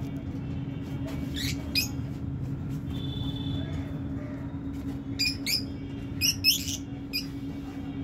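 Lovebirds giving short, shrill chirps: two about a second and a half in, then a quick run of them between five and seven seconds, over a steady low hum.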